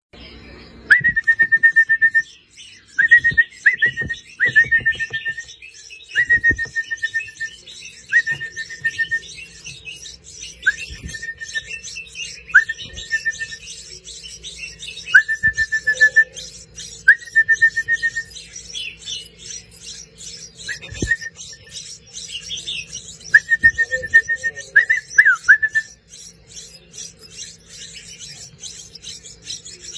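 Baby birds calling: a string of about a dozen high, piping calls, each sweeping quickly into a steady held note up to about a second long, over faint rapid chittering.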